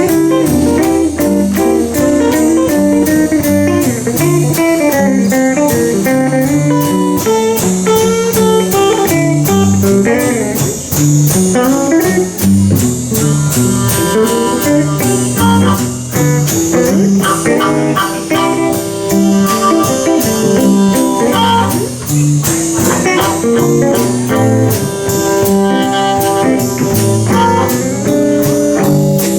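Live blues band in an instrumental break of a fast blues in G: a guitar plays lead lines over rhythm guitar and drum kit.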